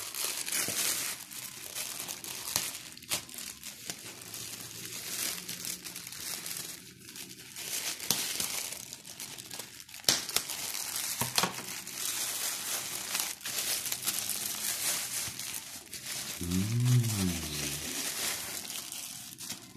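Plastic courier mailer bag crinkling and rustling as it is handled and cut open with scissors, with a few sharp snips. A short hummed voice sound comes near the end.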